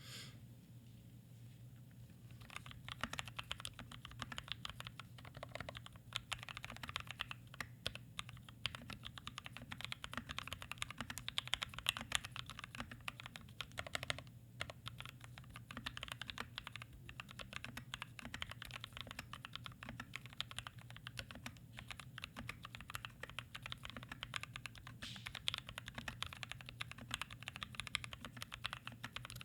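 Custom 60% mechanical keyboard in a walnut case, with foam inside, a brass plate, lubed and filmed Gateron Black Ink V2 linear switches and PBT keycaps, typed on quickly and continuously. The typing begins about two and a half seconds in.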